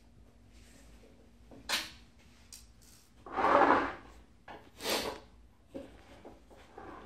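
Handling noises from taking the screws out of the plastic ring on a Toshiba washing machine's stainless-steel inner tub: a sharp knock, then a scrape lasting most of a second about three seconds in, another shorter scrape a second later, and a few light ticks, over a faint steady hum.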